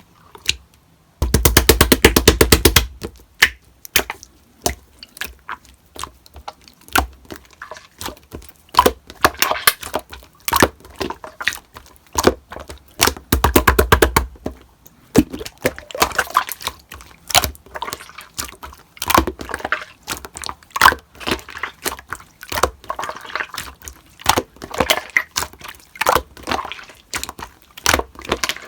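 Slime being squished and pressed by hand, giving a long run of wet, sticky pops and clicks, with two spells of very rapid crackling, about a second in and again around thirteen seconds.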